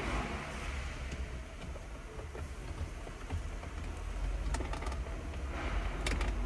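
Handling noise from hands working under a car's steering column during reassembly: rustling, with a few sharp small clicks about four and a half seconds in and again near the end.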